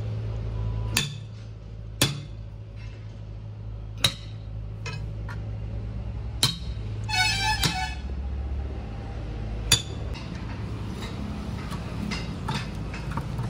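Steel tyre irons and a hammer knocking and prying against a truck's steel wheel rim as the tyre bead is worked off by hand. About six sharp metallic clanks come at irregular intervals over a steady low hum, and a brief high-pitched tone sounds about seven seconds in.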